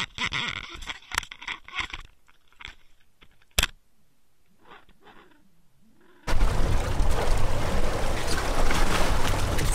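Underwater camera trolled on a fishing line: scattered crackles and clicks of water and housing noise, with one sharp click about three and a half seconds in. About six seconds in this gives way to a loud, steady rushing noise on the boat at sea.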